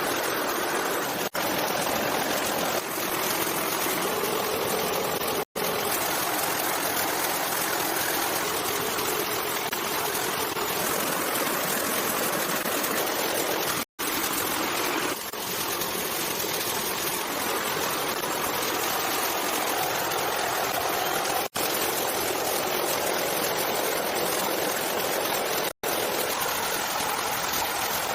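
Steady rushing of running water, like a stream or small waterfall, with no other events; it drops out for an instant five times where clips are cut together.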